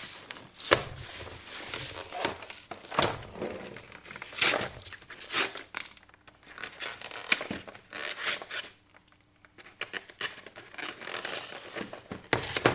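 Packaging on a boxed trading-card collection being torn and crinkled open by hand, in irregular rips and crackles with a brief pause about two thirds of the way through.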